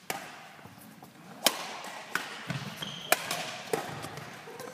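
A ball game rally: a string of sharp hits, about six in under five seconds, at uneven gaps, with two clearly louder strikes.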